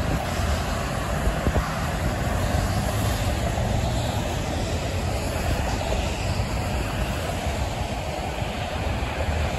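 Highway traffic on a wet road: a steady hiss of tyres through water with the low rumble of passing cars and a tractor-trailer.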